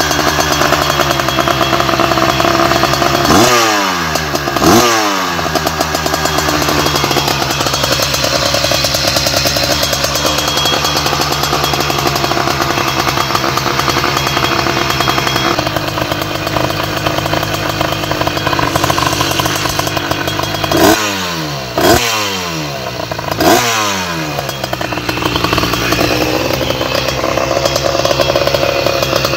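98.5cc two-stroke case-reed motorized-bicycle engine running steadily, blipped sharply on the throttle five times, each rev rising fast and dropping back: twice a few seconds in and three times about twenty seconds later.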